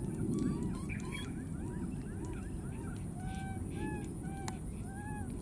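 Baby macaques giving a series of short arched whimpering calls, quick and close together at first, then slower, longer and lower in the second half, over a steady low background rumble.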